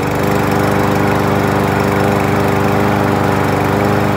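Briggs & Stratton 550 series single-cylinder overhead-valve engine on a walk-behind push mower, running at a steady speed with its valves freshly adjusted.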